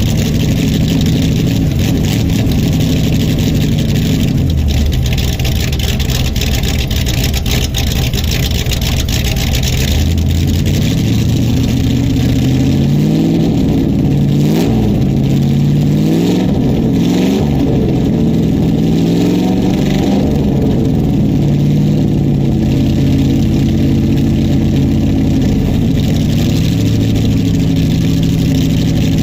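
A 1996 Ford F-150's 5.0-litre V8 with an aftermarket camshaft running at idle after a cold start. For several seconds around the middle its pitch wavers up and down before settling back to a steady idle.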